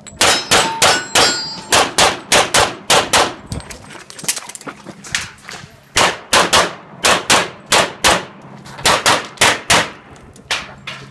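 Rapid pistol fire: strings of shots, mostly in quick pairs, with a brief lull about four seconds in. Some shots are followed by the faint ring of steel targets being hit.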